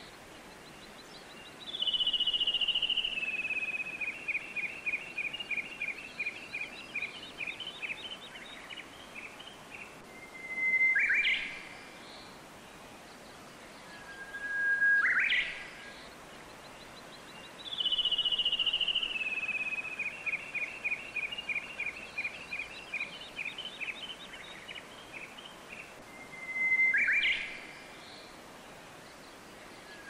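Birdsong over a steady hiss of running water. It is a long descending series of rapid notes lasting several seconds, alternating with short held whistles that sweep sharply upward, and the same sequence comes twice.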